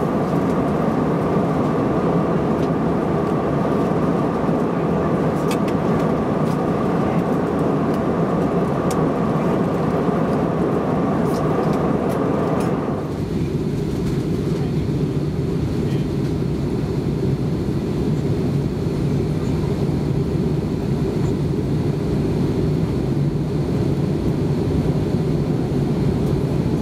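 Steady cabin noise of an airliner in flight: engine drone mixed with the rush of air past the fuselage. About halfway through, the sound changes abruptly to a deeper, duller rumble.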